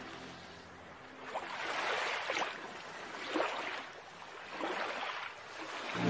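Sea waves breaking and washing, the surf hiss swelling and falling back several times.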